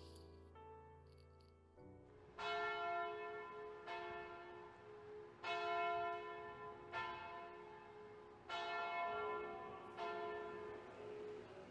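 A church bell tolling slowly: six strokes about a second and a half apart, each ringing on as it fades, beginning about two seconds in after a few soft sustained music notes.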